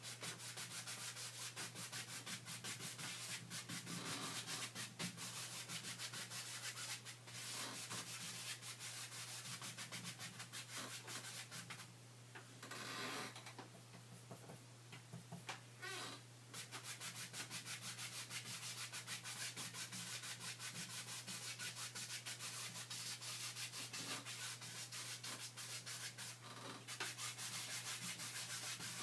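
Rapid back-and-forth rubbing strokes on a painting surface, with a few brief pauses, over a steady low hum.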